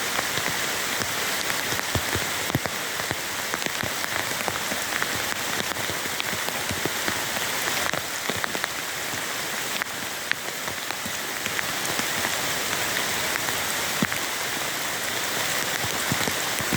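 Heavy rain falling steadily, with many single drops tapping sharply close by.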